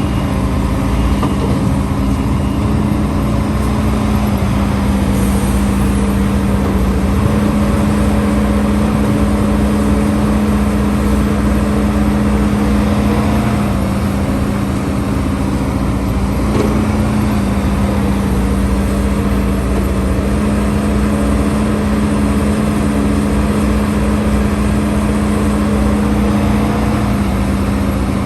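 Diesel engine of a HIDROMEK HMK230LC excavator running steadily under working load, its pitch stepping slightly up and down a few times.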